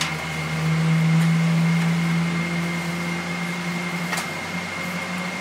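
Steady cabin hum inside a Boeing 777-300ER airliner: a constant low drone from the air conditioning and engines with a thin, steady high whine over it. One faint click about four seconds in.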